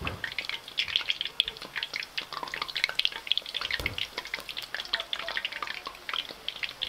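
Batter fritters deep-frying in hot oil in a wok: a steady, dense crackle of small pops and spitting.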